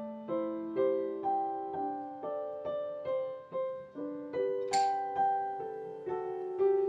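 Background piano music: a slow, gentle melody of single struck notes, about two a second, each fading away.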